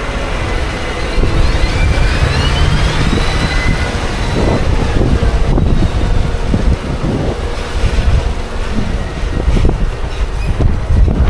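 Heavy farm machinery running, with wind buffeting the microphone and a few high metallic squeals near the start.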